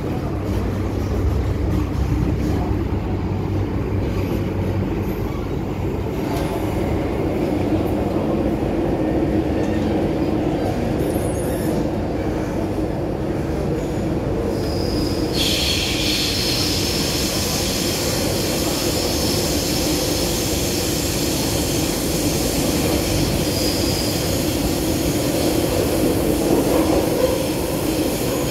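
MTR M-Train electric multiple unit running between stations, heard from inside the carriage: a steady rumble of wheels on rail. About halfway through, a high wheel squeal starts suddenly and carries on.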